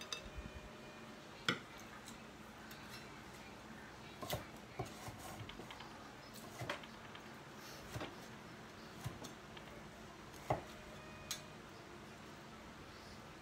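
Cleaver chopping cooked pork on a wooden cutting board: about a dozen sharp single knocks at uneven intervals, a few of them much louder than the rest.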